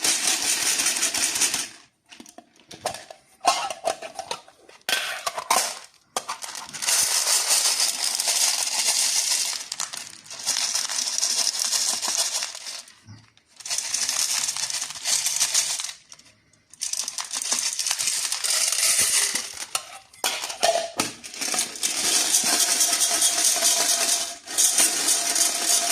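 Small hard candies rattling and clinking against each other and their packaging as they are handled, in repeated stretches of a few seconds separated by short pauses.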